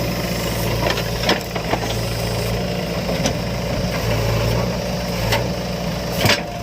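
Diesel engine of a tractor or backhoe loader running steadily at low revs, with a few short sharp knocks now and then.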